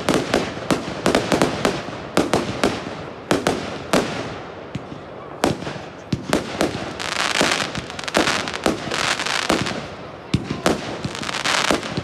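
Fireworks display: a rapid run of sharp bangs from aerial shells bursting, several a second. From about seven seconds in, long stretches of dense crackling join the bangs.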